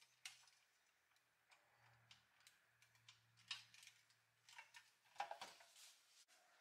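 Faint, scattered clicks and light taps as the restored pressed-steel Doepke toy road grader's front axle and wheel assembly is handled, the loudest cluster about five seconds in.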